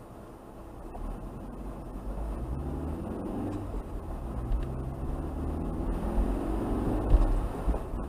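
Car engine heard from inside the cabin as the car pulls away from a standstill and accelerates. The engine gets louder and rises in pitch, drops at a gear change about four seconds in, then rises again, with a short low bump near the end.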